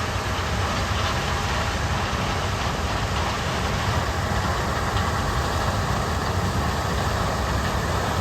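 John Deere 4430 tractor's turbocharged six-cylinder diesel engine running steadily under load, heard from inside the cab.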